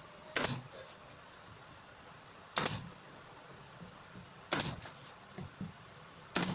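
Nails being driven into a wooden frame: four sharp shots about two seconds apart.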